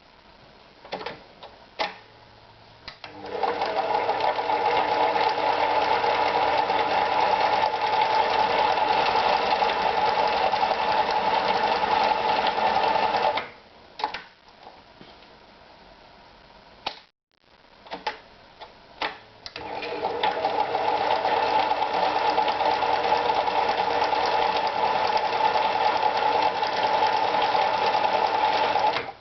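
Privileg Super Automatik TopStar 796 sewing machine stitching in two steady runs of about ten seconds each, with a few clicks before the first run and between the two.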